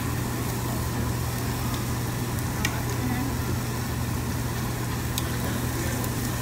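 Beef sizzling on a tabletop Korean barbecue grill under a steady low hum, with a couple of light clinks of metal tongs on the grill.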